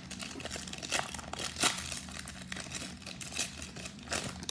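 Plastic crinkling and crackling as trading cards and their packaging are handled, with a few sharper crackles scattered through.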